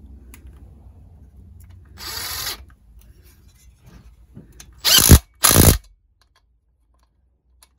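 Power driver run in short bursts, doing up the two small exhaust nuts on a Stihl MS170 chainsaw: a brief whir about two seconds in, then two quick, louder bursts about five seconds in.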